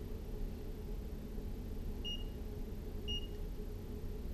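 Greenlee DM-45 digital multimeter giving two short, high-pitched beeps about a second apart, just after being switched on, over a low steady hum.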